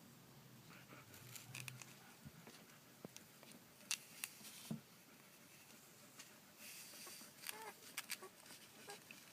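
Faint rustling and small clicks of newborn rough collie puppies squirming, with a couple of faint short squeaks about three-quarters of the way through.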